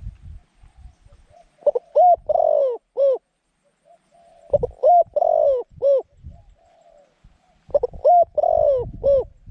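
Decoy dove cooing in three repeated phrases, each a few short arched coos around one longer note, with a pause of about a second between phrases.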